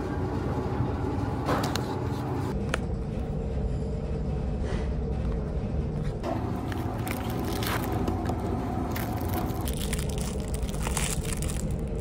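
Steady low rumble of a ferry's engines, with the crinkle and tear of an ice-cream bar's packaging being opened from about halfway through.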